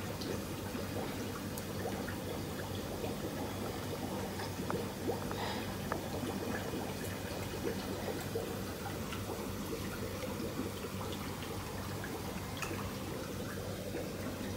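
Steady sound of running water in a tank of tiger shrimp postlarvae, with a low steady hum underneath and a few faint ticks.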